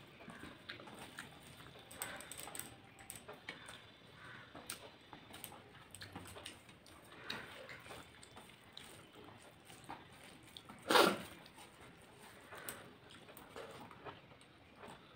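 A person eating rice and potato curry by hand: fingers squishing and mixing rice on a steel plate, with chewing and small wet mouth clicks. One louder short sound stands out about eleven seconds in.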